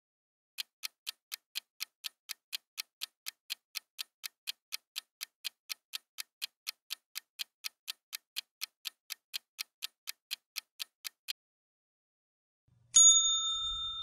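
Quiz countdown-timer sound effect: clock ticks about four a second for roughly ten seconds, then stop. A second later a loud, bright ding rings and fades, marking the answer reveal.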